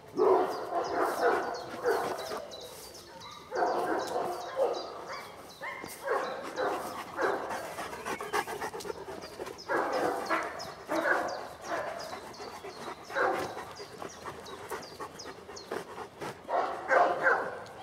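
Large dogs, Leonbergers among them, barking in play, in about six bouts of rapid barks with short pauses between them.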